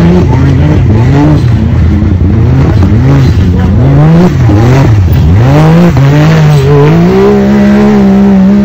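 Can-Am Maverick X3 UTV's three-cylinder engine revving up and down repeatedly under load as it climbs a rocky hill course, dropping low about halfway through, then holding a steady higher pitch for the last second or so.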